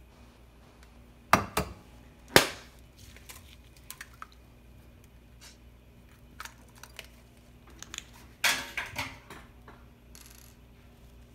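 A brown egg knocked against the rim of a ceramic bowl: two quick taps and then a sharper crack about a second later, followed by faint clicks of shell, and a brief crunchy clatter of eggshell being handled about eight seconds in.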